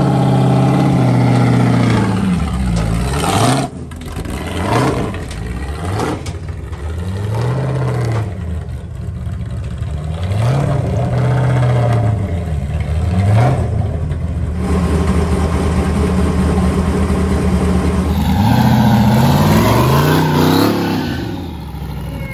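A Crown Victoria burnout car's V8 revving through a side-exit exhaust pipe: held high at first, then a string of short blips that rise and fall, a steadier spell, and more climbing revs near the end.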